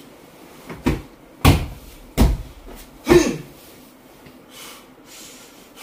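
Four dull thumps in the first three seconds, roughly half a second to a second apart, then quiet room tone.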